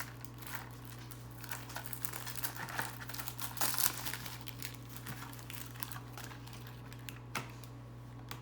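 Candy packaging crinkling and crackling as hands work at opening a pack of candy cigarettes, in quick irregular crackles that are busiest in the first half and thin out later.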